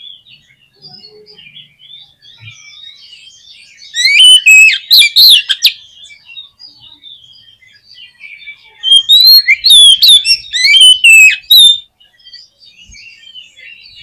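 Oriental magpie-robin singing: two loud bursts of rapid, varied whistled phrases, about four seconds in and again about nine seconds in, with faint chirping between them.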